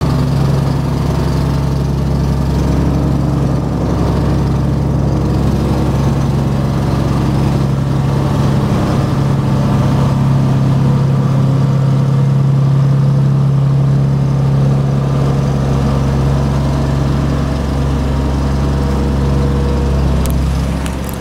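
Vibratory plate compactor running steadily at work, its engine and vibrating plate making a loud, even drone as it compacts a gravel surface.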